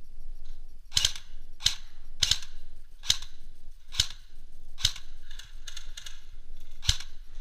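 Airsoft rifle firing single shots: seven sharp cracks, most about a second apart, with a longer gap before the last.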